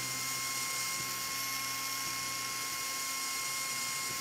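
Cordless drill running at a steady speed as it widens a small hole for an LED, giving a steady motor whine.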